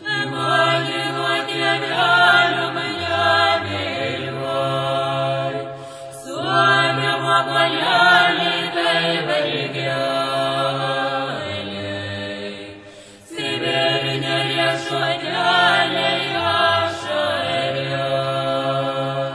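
Vocal music: several voices chanting in long held phrases over a low drone, in three phrases with short breaks about six and thirteen seconds in.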